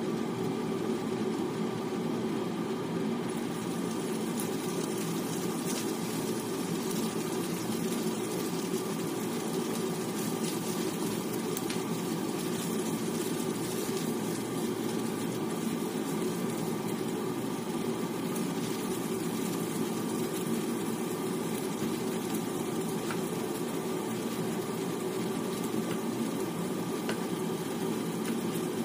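Minced garlic and then diced pork frying in oil in a nonstick pan: a steady sizzle with a few sharp pops, stirred with a spatula.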